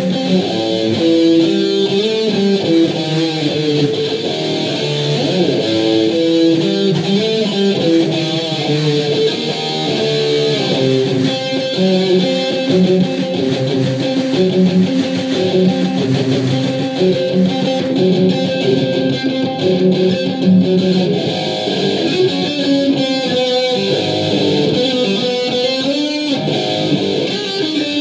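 Electric guitar music played continuously, with shifting chords and notes and no pauses, picked up by an iPhone's microphone in the room.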